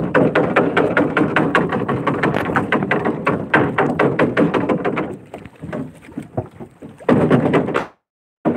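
Gill net being hauled by hand over a boat's gunwale: rapid, irregular rustling and knocking of net, fish and hands against the hull, cut off suddenly about a second before the end.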